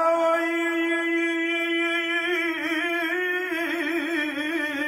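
Unaccompanied male voice chanting a Pashto noha, a Shia lament. It holds one long note, steady at first, then wavering and ornamented from about halfway through.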